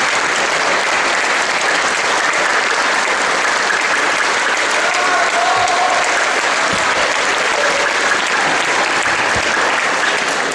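Concert-hall audience applauding steadily, a dense even clatter of many hands.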